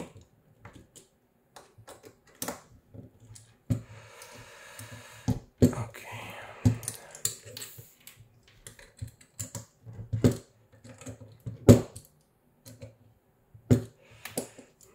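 Hand-handling of small plastic and metal parts: a 3D-printed plastic motor clamp and stepper motor are turned over, and a small screwdriver and a plastic card are set down. The result is irregular clicks and knocks, with a brief scraping rustle about four seconds in and the sharpest knock about three-quarters of the way through.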